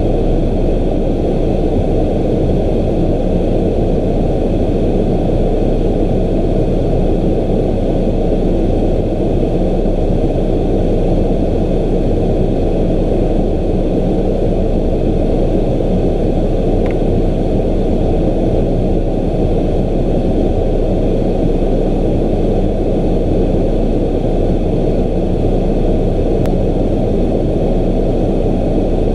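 Honda FourTrax ATV engine running steadily under way, mixed with a dense rumble of wind on the microphone.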